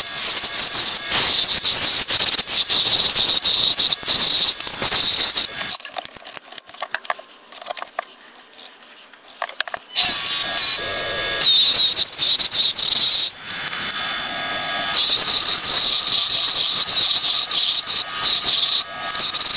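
Wood lathe spinning a wooden handle blank while a hand-held turning chisel cuts into the wood: a steady high whine over rough scraping. About six seconds in it drops to near quiet with a few faint clicks, and about four seconds later the cutting resumes.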